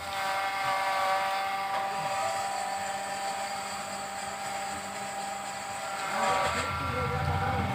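A steady mechanical whine made of several high tones over a light hiss. Near the end a low rumble comes in and grows louder.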